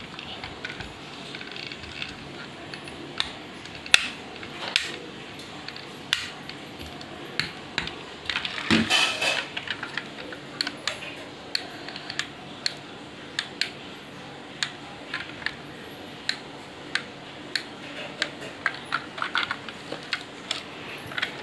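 Hard plastic parts of a transforming toy car clicking and snapping as they are folded and handled: a string of sharp, irregular clicks, with a longer rubbing scrape about nine seconds in.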